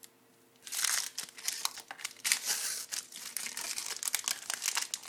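Trading card pack wrapper being torn open and crinkled by hand: a dense run of crackling and crinkling starting about a second in, with many sharp snaps.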